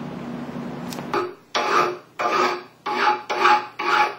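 Rhythmic rasping strokes, about two a second, like a file or hand saw worked back and forth, starting about a second in after a low steady hum.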